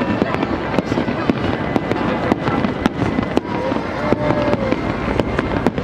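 Fireworks display going off: a rapid, irregular string of sharp bangs and crackles over a continuous din.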